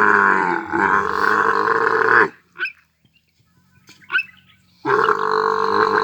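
A large animal's loud, drawn-out growling call. It cuts off suddenly a little over two seconds in, and after a near-silent gap with two brief faint sounds it starts again near the end.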